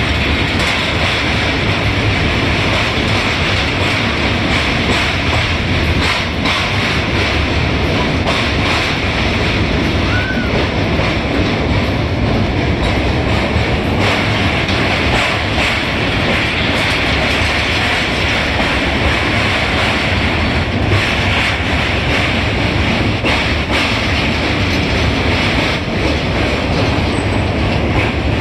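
Ziyarat Express passenger train crossing a steel truss girder rail bridge, heard from inside the moving coach: a loud, steady rumble and rattle of wheels on the rails.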